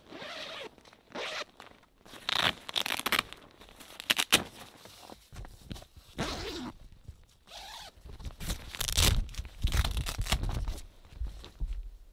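Zipper on the door of a OneTigris CozShack hot tent being opened in a series of short rasping pulls, with the tent fabric rustling as it is handled.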